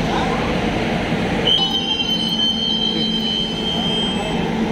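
Passenger train coach rumbling steadily, with a high, steady squeal from the wheels that starts about one and a half seconds in and stops near the end.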